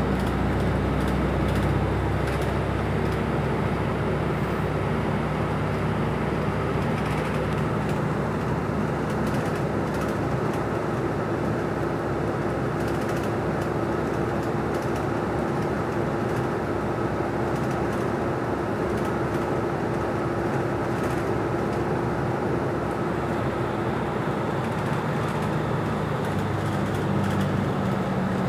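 Inside a moving city bus: steady engine and road noise with a held hum, the low engine drone stronger at the start and again near the end.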